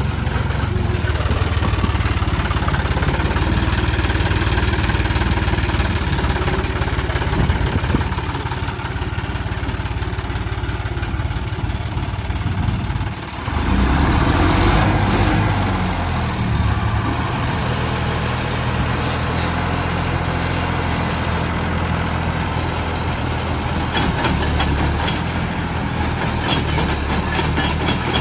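John Deere 5310 tractor's three-cylinder diesel engine running steadily as the tractor drives slowly. About halfway through the sound dips briefly and comes back louder.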